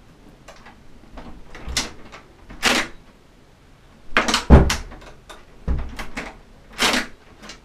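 A wooden door's knob being turned and rattled. The latch clicks and the door knocks against its frame several times, because the door won't work properly.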